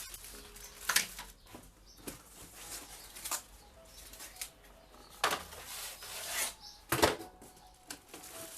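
Plastic packaging and parts being handled while unpacking: rustling with several sharp knocks and clicks, the loudest a few seconds before the end.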